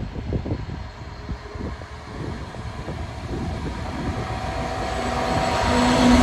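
Class 66 diesel-electric locomotive approaching, its two-stroke diesel engine growing steadily louder. A steady engine drone with a clear pitch comes up over the rumble in the last second or so.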